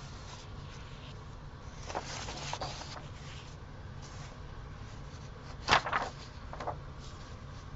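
Paper rustling as cut-out pieces are handled and sorted, then a sharp knock on the table about six seconds in and a softer one just after, over a low steady hum.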